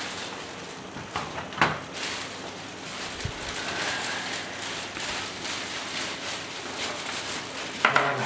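Plastic packaging crackling and rustling as it is torn off a new keyboard, with a sharp click about a second and a half in and a short low thump a little later.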